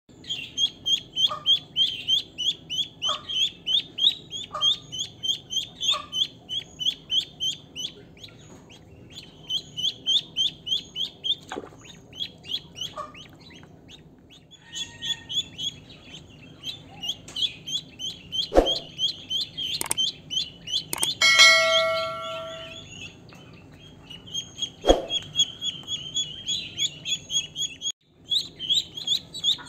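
Ducklings peeping rapidly and continuously, about four high chirps a second, with a few short pauses. About two-thirds of the way in, a brief ringing tone sounds over them.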